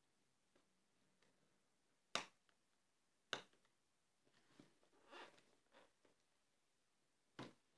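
Clear plastic tube case and its plastic sleeve being handled: three sharp plastic clicks, two about a second apart and one near the end, with soft plastic rustling in between.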